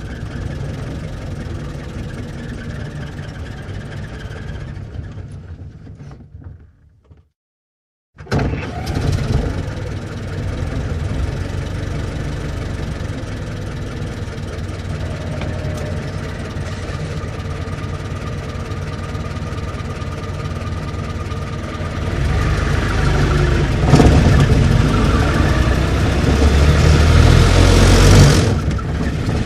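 Old car engine running, fading out, then after a brief silence another old car engine comes in abruptly and runs steadily. About two-thirds of the way through it grows louder, with a sharp click in the middle of that stretch, then drops back near the end.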